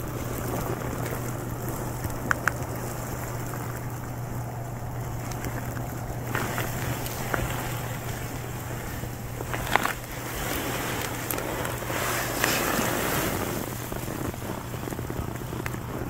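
Steady outdoor background noise with a constant low hum, broken by a few brief clicks.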